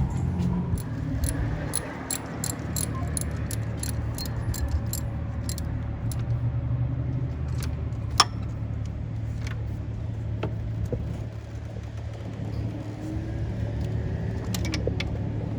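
Car engine running with a steady low hum, with a quick run of metallic clicks over the first few seconds and a single sharp click about eight seconds in.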